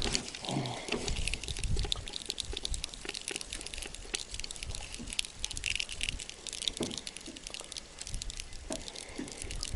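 Water dripping and splashing, with many small irregular clicks and crackles over a low rumble.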